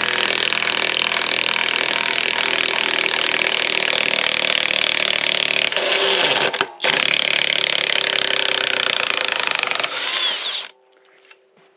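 Craftsman V20 high torque cordless impact wrench hammering an 8-inch lag screw back out of wood in reverse. It runs hard for about ten seconds, with one brief stop about two-thirds of the way through, then stops as the lag comes free.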